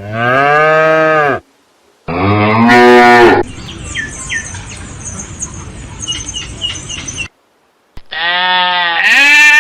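Cows mooing: three long, arching moos, one at the start, one about two seconds in and one near the end. Between the second and third moo there is a few seconds of noisy background with faint short chirps.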